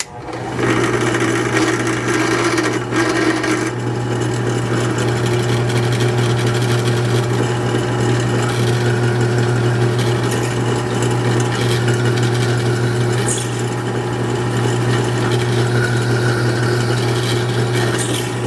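Drill press starting up and running with a steady hum while a number 10 bit drills a hole through a piece of aluminum.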